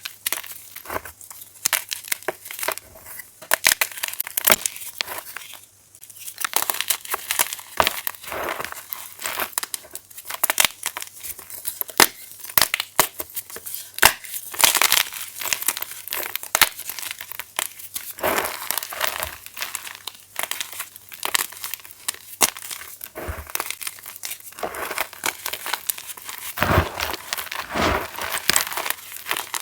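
Plain chalk being crushed, crumbling with dense, irregular crunches and crackles, with a short lull about six seconds in.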